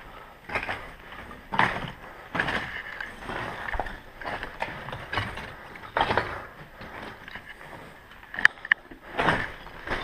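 Slow, irregular footsteps and rustling of gear, roughly one step a second, with two sharp clicks close together near the end.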